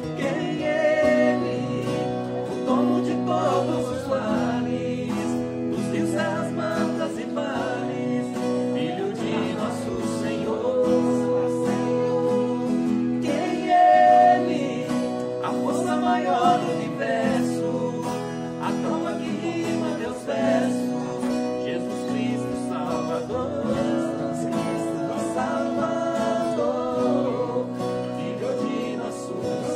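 Two guitars strummed together while a man sings a song over them, with a loud held high note about fourteen seconds in.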